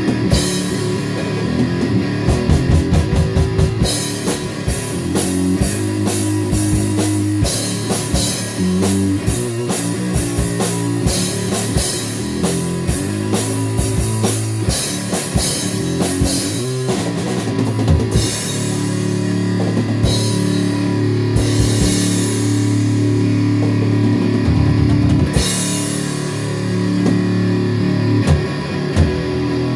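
Rock music with a full drum kit driving a steady beat, guitar, and bright cymbal crashes in places.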